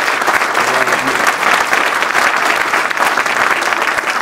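A large audience applauding: dense, steady clapping from many hands at once.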